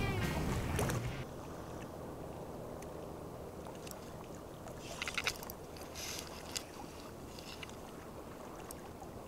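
Steady wash of small waves lapping at the shore, with a few brief faint ticks around the middle. Background music fades out in the first second.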